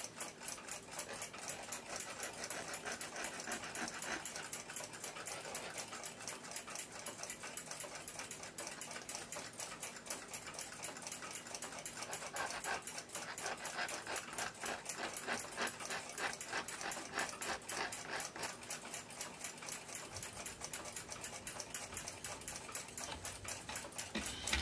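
A small hand file rasping in rapid short strokes on the broken end of a tempered steel clock gong rod, roughening it so that epoxy will bond.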